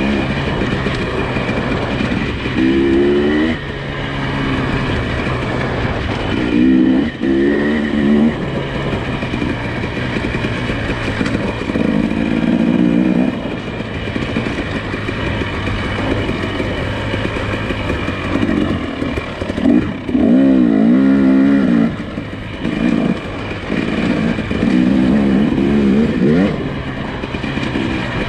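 Nissan Pathfinder SUV engine running while driving an off-road trail, with a steady drone broken by five or six short revs of a second or two each as it works under load.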